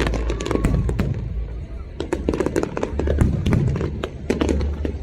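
Fireworks display going off in quick succession: many sharp cracks and pops over a steady low rumble of booming shells.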